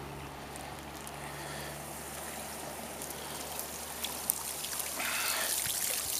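Water trickling and dripping off a cast net as it is hauled hand over hand up out of the water, getting louder about five seconds in. A faint steady low hum runs underneath.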